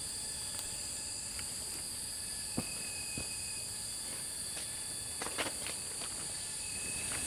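Forest insects, crickets or cicadas, keeping up a steady high-pitched drone, with a few soft clicks and knocks about two and a half, three and five seconds in.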